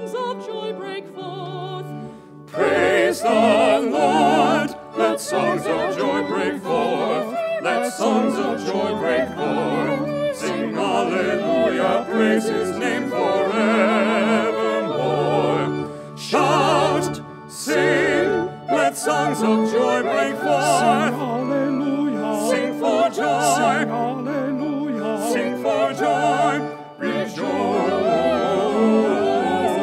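A small vocal ensemble of four singers singing a hymn of praise in parts, with vibrato, pausing briefly about two seconds in.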